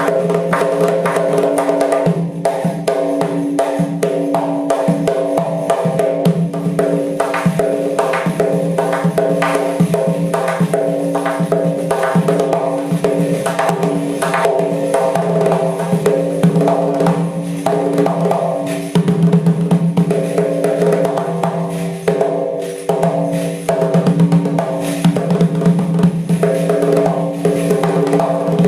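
Doira, a Central Asian frame drum with metal jingle rings, played in a fast, dense stream of strokes. Steady sustained pitched tones sound underneath it.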